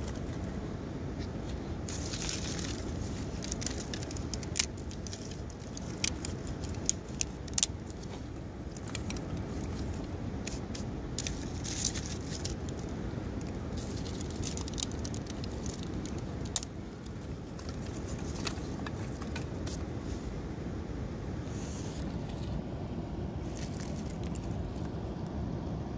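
Dry twigs snapping, crackling and scraping as they are handled and stacked into a stone fire ring, in sharp clusters of clicks, over the steady rush of a waterfall.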